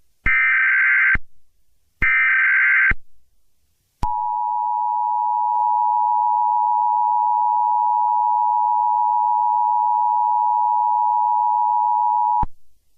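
Emergency Alert System SAME header: two bursts of warbling digital data tones, about a second each, the last of the three header bursts. About four seconds in, the EAS two-tone attention signal starts, a loud steady dual tone announcing an emergency alert; it is held for about eight seconds, then cuts off.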